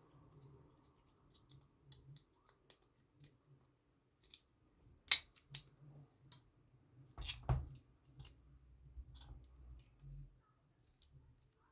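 Lock pick and tension wrench working the pins of a pin tumbler padlock: scattered small metallic clicks and scrapes. There is a sharper, louder click about five seconds in and a duller knock of the lock being handled about two seconds later.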